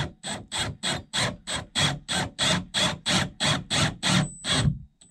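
Cordless drill driving a long pocket screw into a wood block, its motor running in short, regular bursts, about three a second.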